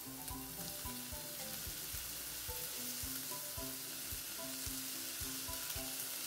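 Chopped onion and garlic sizzling steadily in olive oil in a saucepan, with diced tomato being added, over soft background music.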